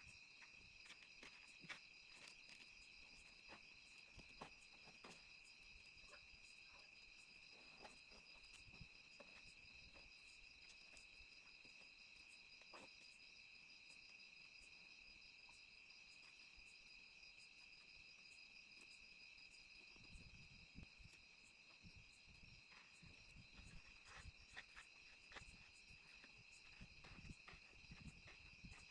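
Faint steady insect chirping on a few high pitches, with scattered soft clicks and some low knocks in the last several seconds.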